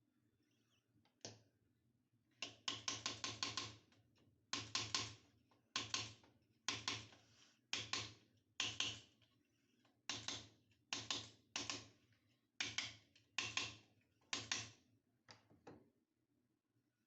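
Hand tool working at a tap fitting: a dozen or so bursts of quick sharp clicks, several clicks to each burst, about a second apart, the longest burst near the start.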